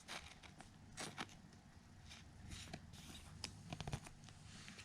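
Faint rustling and soft clicks of trading cards being handled and flipped through, scattered over a low steady hiss.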